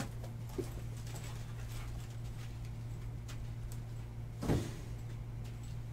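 Steady low electrical hum, with a few faint clicks and one soft thump about four and a half seconds in.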